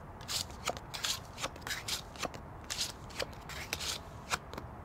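Playing cards being handled and dealt onto a wooden tabletop. It is a quick, irregular run of crisp card snaps and short slides.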